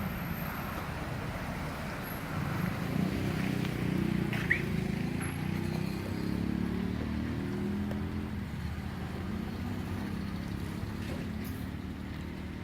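Outdoor street ambience: a steady low rumble of engines and traffic, with one short sharp tick about four and a half seconds in.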